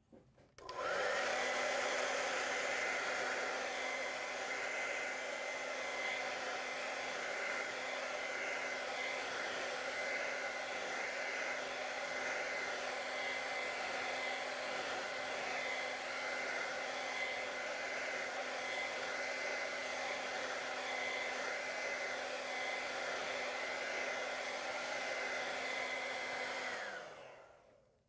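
Hand-held hair dryer switched on and running steadily over wet acrylic paint to dry it: an even rush of air with a steady high whine and a low hum. It winds down and stops shortly before the end.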